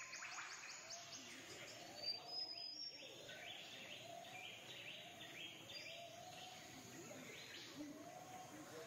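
Faint birdsong: several birds chirping and trilling at once, with short arching notes repeated about every half-second under higher, quicker chirps.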